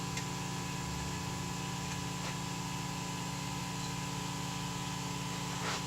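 A shop machine's electric motor running with a steady, even hum.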